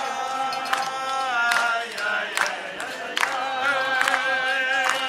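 A group of people singing a Jewish celebration song together, with sharp hand claps roughly once a second.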